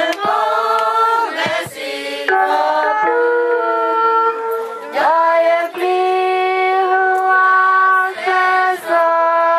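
A women's choir singing a slow song from their books, in long held notes with short breaks between phrases.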